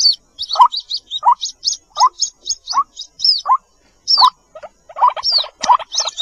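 White-breasted waterhen (ruak-ruak) lure recording: a short rising call repeated about every three-quarters of a second, under quick high-pitched peeps of waterhen chicks. The calls crowd together and grow busier about five seconds in.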